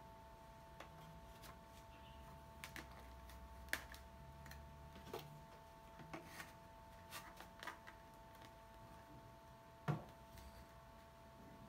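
Hard plastic parts of a Makita cordless stick vacuum, its cyclone dust collector attachment and extension pipes being handled and fitted together: scattered light clicks and taps, with a louder knock near the end.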